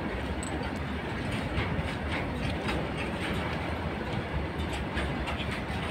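Freight train of empty petroleum tank wagons passing close by: a steady rumble of wheels on rails with a quick run of clickety-clack clicks as the wheels cross the rail joints.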